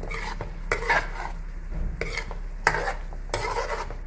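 Metal spoon scraping and stirring chicken and vegetables around a metal pan in repeated strokes about every half second to second, over the light sizzle of frying.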